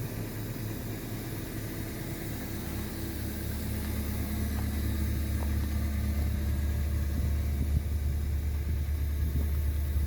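An engine running steadily with a low hum that grows louder about three seconds in, then holds.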